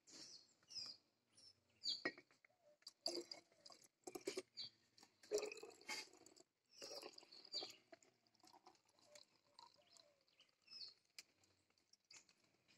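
Faint handling sounds: glass bottles tapped and set down on a wooden table and liquid poured into a small glass bottle, as scattered quiet taps and clinks, with faint bird chirps in the background.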